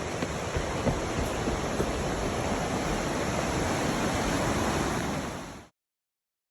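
Steady rushing noise, strong in the low end, with a few faint knocks; it cuts off abruptly about five and a half seconds in.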